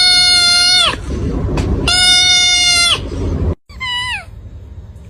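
Two long, loud animal cries held at a steady pitch, each about a second, followed by a shorter call that falls in pitch.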